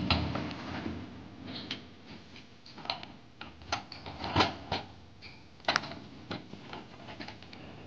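Irregular light clicks and taps of objects being handled, with louder knocks about four and a half and about six seconds in.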